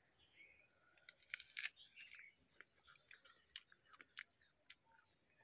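A person biting into and chewing a raw apple: faint, irregular crisp crunches.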